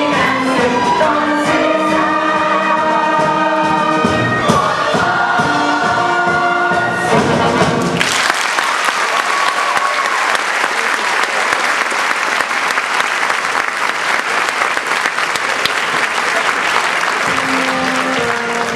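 A musical-theatre cast singing together with orchestra, which stops abruptly about eight seconds in and gives way to a theatre audience applauding. Near the end an orchestra starts playing again.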